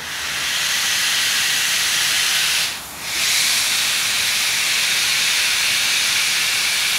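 Green tank steam locomotive's cylinder drain cocks venting steam in a loud, steady hiss, broken by a short gap about three seconds in.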